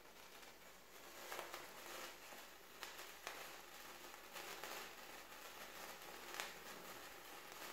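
A handheld sparkler burning with a faint steady fizz and a few sharper crackles at irregular moments.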